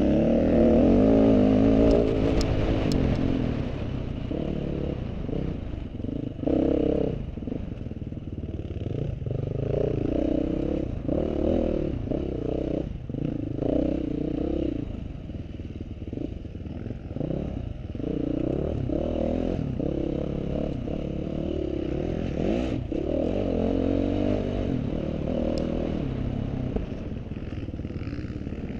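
Off-road competition vehicle's engine revving up and down again and again, loudest at the start, with a few sharp clattering knocks.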